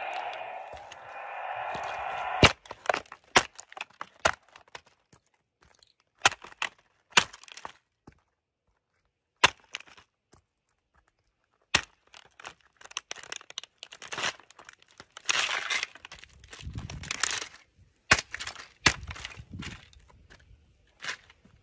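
A plastic toy garbage truck in its cardboard box being stomped flat under work boots: a string of sharp cracks of breaking plastic, one per stomp, with longer stretches of crunching and crumpling cardboard and plastic in the later part. An electronic sound from the toy plays for the first two seconds and stops at the first crack.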